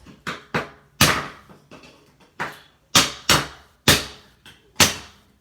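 Repeated hard knocks, about ten of them at roughly two a second and unevenly spaced: smoke alarm parts being struck on a tabletop in an attempt to break them apart.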